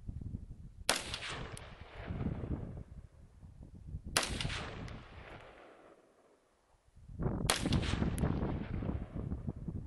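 Three single gunshots, about three seconds apart, each followed by a rolling echo that fades over about a second.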